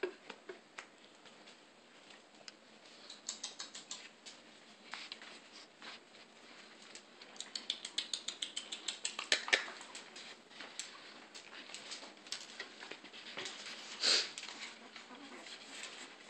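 Light, quick clicks and taps of young puppies' claws scrabbling on a wooden tabletop as they are handled. There is a run of faster tapping about halfway through and one louder short sound near the end.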